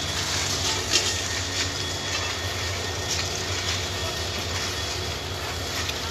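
A steady low engine hum under a noisy hiss, with a few faint clicks.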